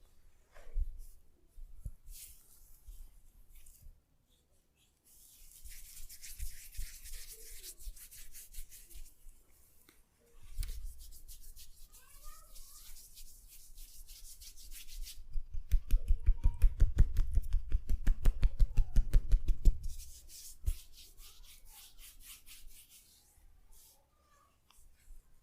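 Hands massaging oiled skin and hair, with rubbing strokes throughout. About two-thirds of the way through, the massage turns to around four seconds of rapid, rhythmic tapping thumps.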